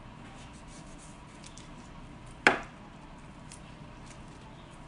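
Gloved hands working a jackfruit with a knife on a cutting board: faint small clicks of handling, and one sharp knock about halfway through.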